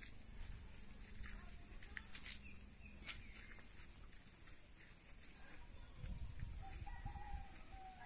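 A rooster crowing, one long call beginning about six seconds in, over a steady high hiss and a low rumble.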